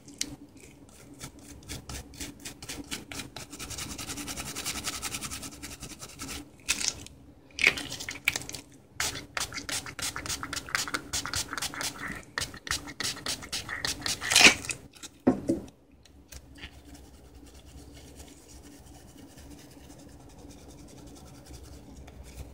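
Scrubbing a computer mouse's circuit board with isopropyl alcohol to clean off soldering flux: a run of quick scratchy strokes. There is a hiss for a couple of seconds a few seconds in, and the strokes grow quieter in the last few seconds.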